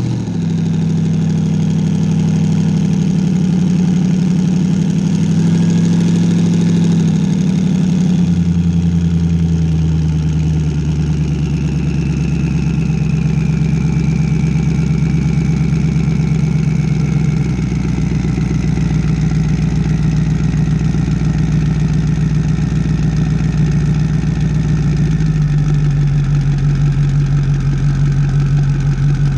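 Ski race boat's engine running at low speed, its note dropping about eight seconds in as it is throttled back, then settling into a steady low rumble. A faint whine falls in pitch midway.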